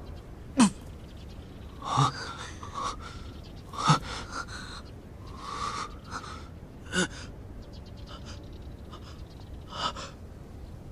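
A man's short, pained gasps and breaths, about eight of them, coming every second or two.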